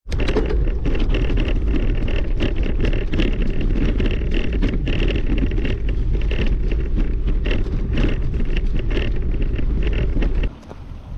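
Wind rumbling on the microphone while travelling over a rough dirt-and-gravel road, with tyres crunching and the ride rattling in many small knocks. It starts suddenly and cuts off about ten and a half seconds in.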